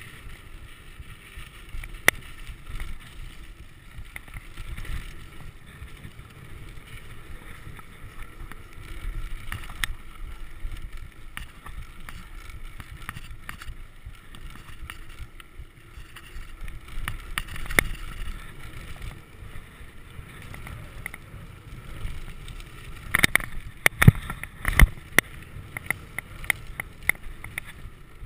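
Mountain bike riding down a dirt trail: a steady low rumble of tyres on dirt, with scattered clicks and rattles from the bike and a cluster of sharper knocks a few seconds before the end.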